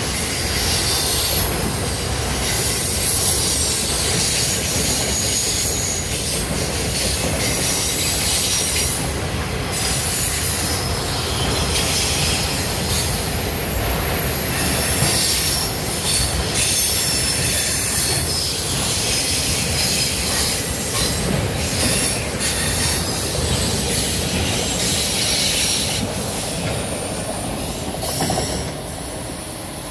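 Loaded autorack freight cars rolling past, a steady rumble of steel wheels on rail with a high-pitched wheel squeal over it; it gets quieter near the end.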